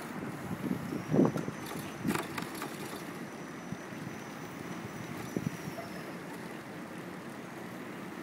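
Wind buffeting the microphone on a moving bicycle, with a steady rumble from riding over the road and a few short knocks and rattles, the loudest about a second in.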